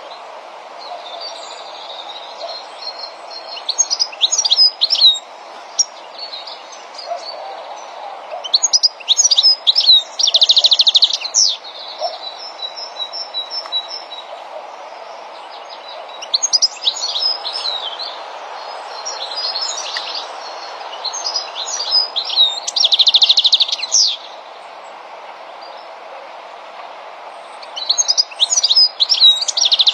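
European goldfinches twittering: phrases of quick, tinkling chirps mixed with buzzy trills come in bursts every few seconds. The phrases sit over a steady background noise.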